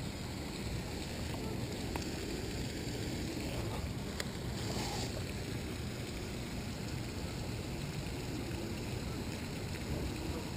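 Steady wind buffeting the microphone over lapping water, with a few faint clicks as the hook is worked out of a channel catfish's mouth.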